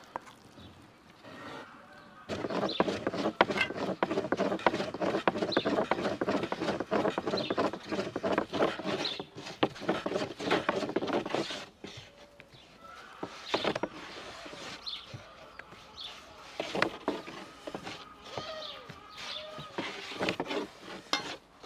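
Long thin wooden rolling pin rolling dough over a wooden board: a dense clatter of quick knocks and rubbing for about ten seconds, then quieter scattered taps. Birds chirp now and then.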